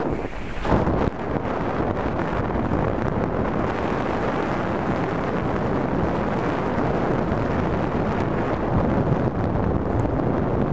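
Wind rushing over the camera microphone on a fast bicycle descent, mixed with the steady rumble of 29 x 3 inch plus-size mountain bike tyres rolling over a gravel road, with one louder bump under a second in.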